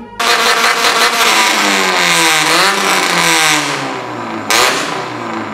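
A car engine revving hard, its pitch climbing and falling several times. A short sharp burst of noise cuts in about four and a half seconds in.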